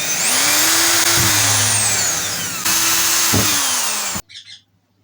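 Power tool motor running fast, its pitch rising and then falling; the sound breaks off sharply about halfway through, starts again and stops abruptly near the end.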